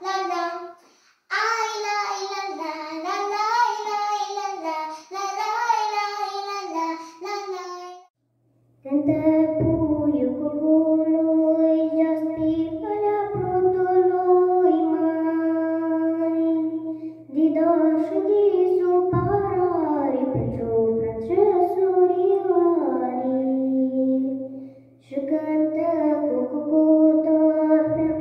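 Young girls singing folk songs solo into a microphone. One girl's singing breaks off about eight seconds in. After a short gap a second girl begins singing, with a steady low hum under her voice.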